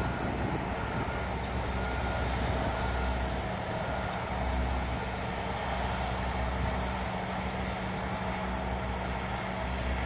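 Diesel engines of asphalt paving equipment (paver, hopper feeder vehicle and dump truck) running steadily as a low, even hum under a general haze of machinery and road noise.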